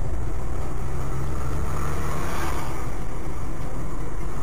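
Steady engine and road noise from a car driving, swelling briefly about two seconds in.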